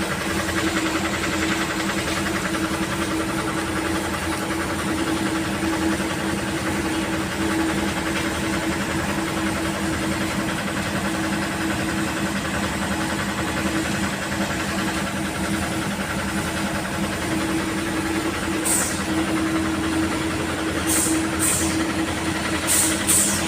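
An engine running steadily at an even speed, with a few short hissing sounds near the end.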